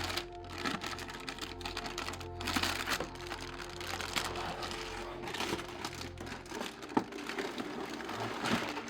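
Background music with steady held tones and a low bass, with scattered short clicks and crinkling over it and one sharper click about seven seconds in.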